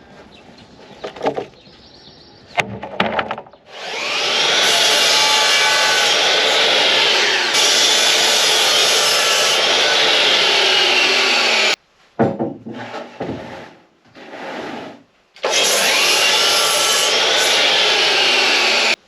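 Electric power saw cutting spruce timber: a loud, steady cutting noise with a whine that bends in pitch as the blade loads, lasting about eight seconds and stopping abruptly. A second cut starts near the end. Short knocks of wood being handled come before and between the cuts.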